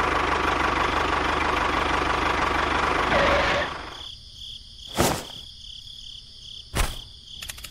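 Tractor engine running steadily with a knocking rattle, which stops about three and a half seconds in. Two short sharp knocks follow, about two seconds apart.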